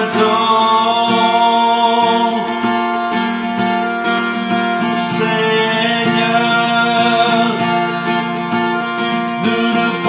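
A man singing a slow worship song in French, holding long notes, over a strummed acoustic guitar.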